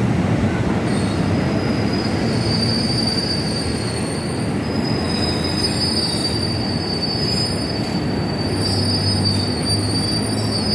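KRL commuter electric train rolling slowly in and slowing along the platform, its wheels squealing in high, thin tones over a low rumble. The squeal starts about a second in and keeps on.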